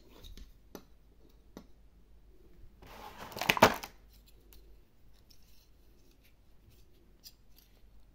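Small plastic toy figures clicking and tapping as they are handled and set down, with a louder stretch of rapid plastic clattering and rattling about three seconds in, then a few faint ticks as the jointed parts are folded.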